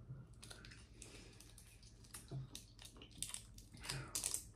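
Faint scattered clicks and soft wet crackles from seafood-boil food being handled and eaten, a little busier near the end.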